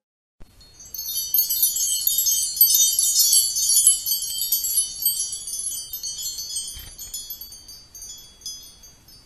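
Tinkling chimes: a dense shower of many high, bell-like notes starting about a second in, then thinning out and slowly fading away.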